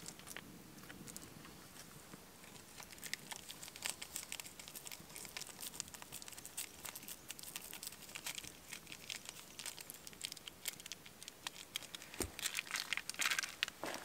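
Crinkling and rustling of a small coffee packet being handled and opened over a cup, a run of small irregular crackles. The rustling grows louder near the end.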